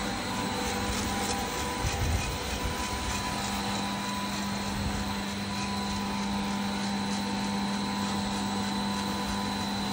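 30 kg Wave Roaster coffee roaster running steadily while it roasts a test batch: an even whir of its motors and fans with a steady hum.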